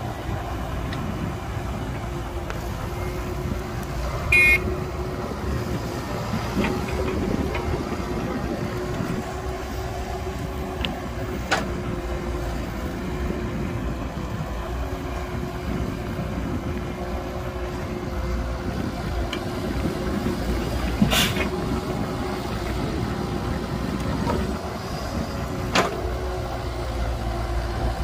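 Excavator's diesel engine running steadily at working load, a continuous drone. Four sharp clanks are spread through, one of them ringing briefly.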